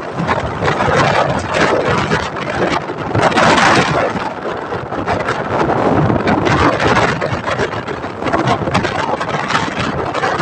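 Wind buffeting the microphone of a moving motorcycle, mixed with its engine and road noise.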